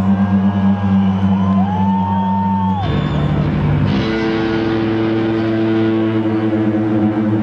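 Loud live rock music heard from the crowd: a solo electric guitar holding sustained low notes through the PA, with a sliding high tone over it, changing note about three seconds in and again a second later.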